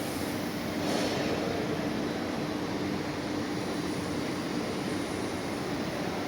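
Steady mechanical running noise with a faint low hum, a little louder about a second in.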